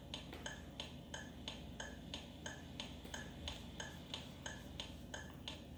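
Faint, evenly spaced light clicks, about three a second, in a steady rhythm.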